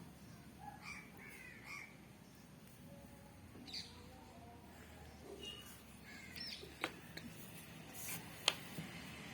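Faint bird calls: several short calls with rising and falling pitch, scattered through the stretch. Two sharp clicks come late on, the second the loudest sound here.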